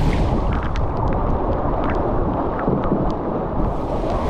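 Typhoon wind buffeting the microphone in a steady low rumble, with scattered sharp ticks over it.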